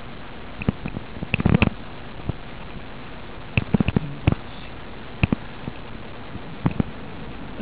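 Scattered sharp knocks and clicks, some in short clusters, from a small camera being jostled while skiing downhill, over a steady hiss.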